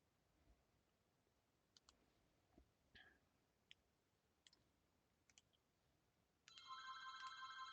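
Faint, scattered computer mouse clicks. About six and a half seconds in, a steady electronic tone of several pitches starts and keeps going.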